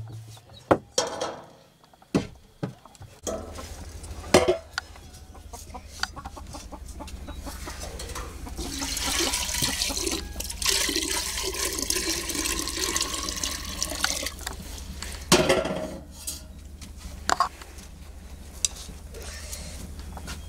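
Water poured from a large aluminium water vessel into a metal pot, a steady splashing pour of about six seconds in the middle. Sharp knocks of metal pots being handled come before and after the pour.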